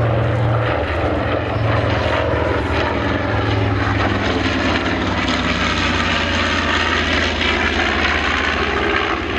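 North American B-25 Mitchell bomber's two Wright R-2600 14-cylinder radial engines running in a loud, steady drone as the aircraft flies a display pass, the pitch shifting gently as it goes by.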